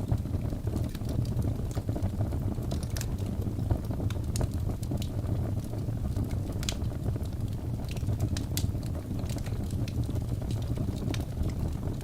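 Wood fire burning in a fireplace: a steady low rumble of flames with irregular crackles and pops.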